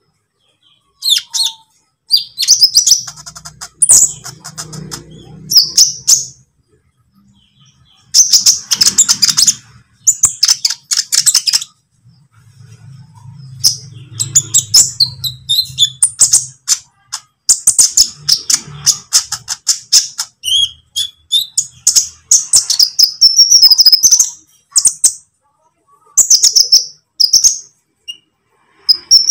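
Olive-backed sunbird (konin) song: bursts of rapid, high chirps and twitters broken by short pauses, a recording used as a lure to get caged sunbirds to sing.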